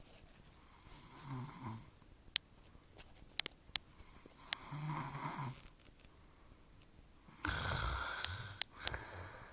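A sleeping man snoring: three snores about four seconds apart, the last one the loudest. Small sharp clicks come between them.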